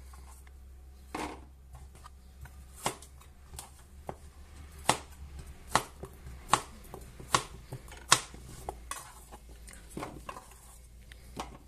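Chef's knife dicing peeled raw potatoes on a plastic cutting board, each cut ending in a sharp knock of the blade on the board. In the middle the knocks come in an even run, a little under a second apart.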